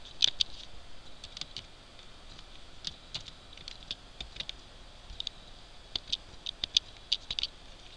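Typing and clicking on a computer keyboard and mouse: irregular sharp clicks, some in quick runs of several.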